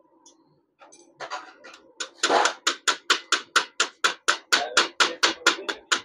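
Hammer tapping a steel punch to drive a dowel pin into a Honda 70 engine's aluminium crankcase: a few light taps about a second in, then quick even metal-on-metal strikes, about five a second.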